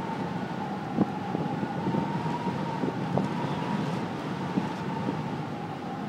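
Wind howling around a cable car cabin, heard from inside: a steady whistling tone that wavers slightly in pitch over a rushing noise, with a couple of sharp knocks from the cabin.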